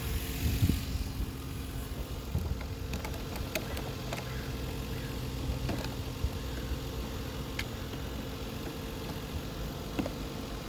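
2002 Lexus GS300's 3.0-litre inline-six engine idling steadily, with a few faint clicks over it.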